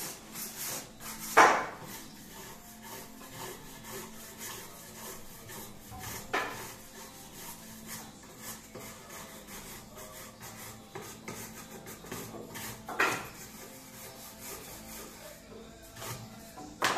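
A hand tool rasping and scraping along the turned wooden legs of a small table in short, repeated strokes. Four strokes stand out as louder, spread through the stretch.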